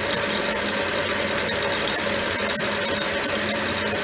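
Metal lathe running steadily with an even hum and a few constant whining tones, during a thread-cutting pass on a small part.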